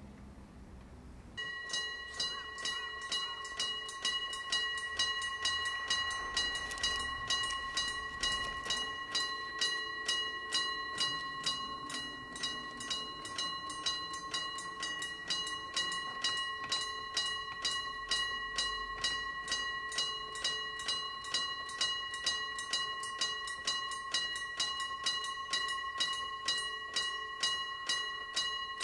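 Railway level-crossing warning bell starts about a second and a half in and keeps ringing evenly, about two strokes a second, the signal that a train is approaching.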